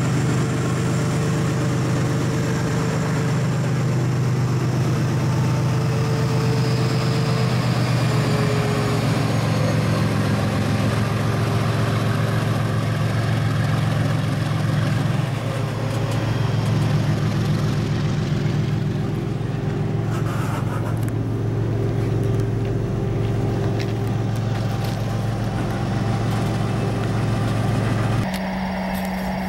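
Diesel locomotive engine running close by: a loud, steady low drone. The engine note shifts about eight seconds in, and the sound changes abruptly near the end.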